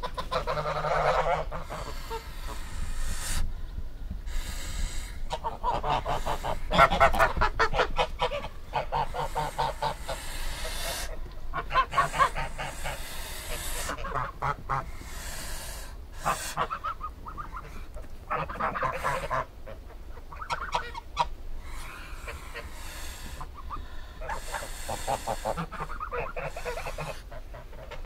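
Geese honking: a long run of repeated, irregular calls, one after another with short gaps.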